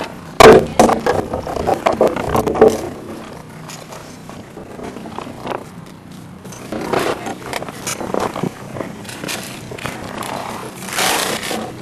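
Litter being handled and picked up: scraping, rustling and clattering of trash, with a flurry of sharp clatters in the first few seconds and more scraping near the end.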